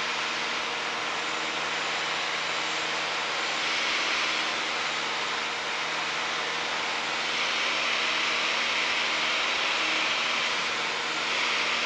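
Steady cabin drone of a Piper Warrior in flight: its four-cylinder Lycoming engine and propeller running at a constant setting under a hiss of wind. It swells slightly a few times but never changes its note.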